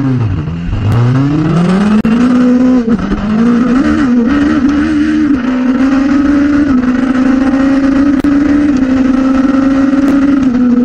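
Nitrous-fed Hayabusa 1441 inline-four motorcycle engine at full throttle in a drag run. It climbs quickly in pitch off the line, dips briefly at a gear change about three seconds in, then holds a steady high pitch at speed.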